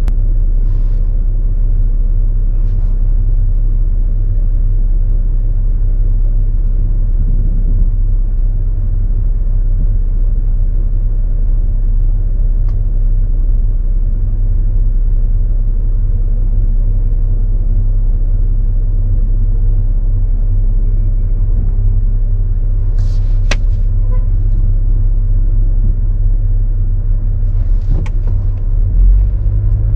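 Steady low rumble of a car on the move, heard from inside the cabin: engine and road noise. Two brief sharp clicks come about two-thirds of the way through and again near the end.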